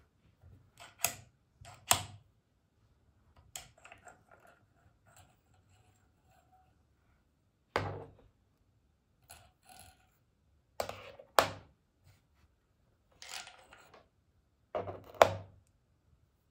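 Metal parts of a Gevarm .22 LR carbine clicking and clacking as the rifle is stripped by hand. The bolt and recoil spring are drawn out of the receiver and set down in a plastic tray, making a string of separate sharp knocks.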